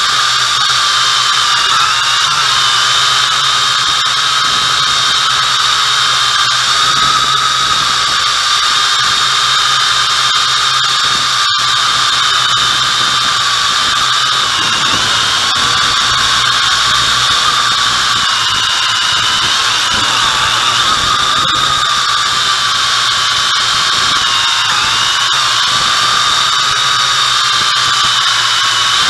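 MJX X101 quadcopter's motors and propellers in flight, heard from on board: a loud, steady high whine whose pitch dips and recovers several times. A split-second dropout comes near the middle.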